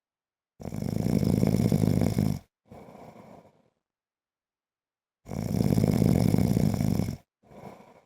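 A man snoring in his sleep: two loud snores of about two seconds each, some five seconds apart, each followed by a shorter, much softer breath.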